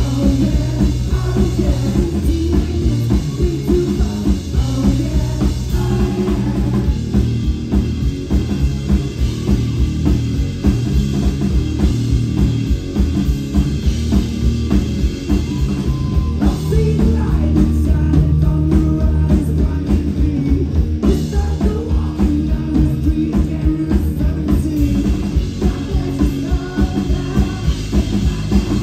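Rock band playing live: electric guitar, bass guitar and drum kit at a steady driving beat, loud and heavy in the low end.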